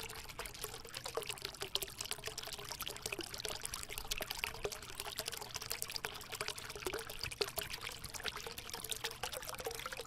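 Black wax crayon scratching across paper in quick shading and outlining strokes: a dense, continuous crackly scratching.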